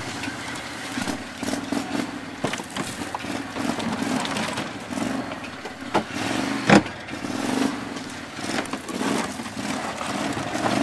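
Engine of a Max six-wheel off-road vehicle running and revving up and down while crawling through rough ground, with scattered sharp clicks and knocks and one loud knock about seven seconds in.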